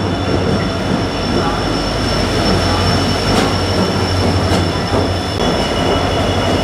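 A WDP4D diesel-electric locomotive with its 16-cylinder two-stroke EMD engine rolls slowly past along the platform as it draws in, giving a steady low engine drone and rumble. Steady high-pitched whining or squealing tones sit over it, with a few faint knocks from the wheels.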